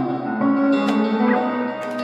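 Background instrumental music: held chords that change every half second or so, with a few struck notes.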